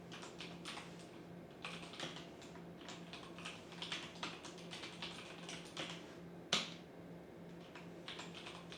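Typing on a computer keyboard: irregular runs of quick key clicks, with one sharper, louder click about six and a half seconds in, over a faint low hum.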